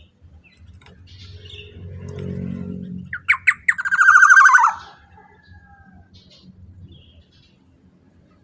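Black-naped oriole (kepodang) calling loudly about three seconds in: three quick sharp notes, then one harsh, nasal squawk about a second long. A low rumble swells just before it.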